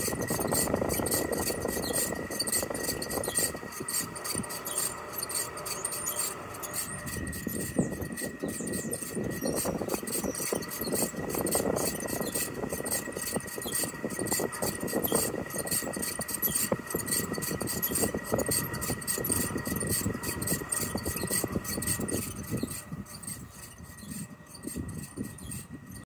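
Chiltrix CX30 heat pump outdoor unit's condenser fan running with a loud, squeaky noise from the fan area: a steady high squeal over rapid ticking, a little fainter near the end. The noise is new on a seven-year-old unit and marks a defective component in the fan area.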